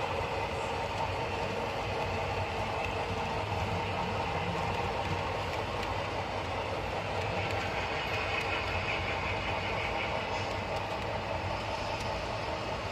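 Model railroad freight train rolling past on the layout's track: a steady running sound with a few faint clicks from the wheels.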